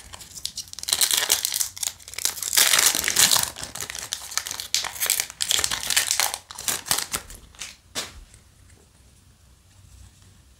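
Foil wrapper of a trading-card booster pack crinkling and tearing as it is opened by hand, loudest about three seconds in and dying away after about eight seconds.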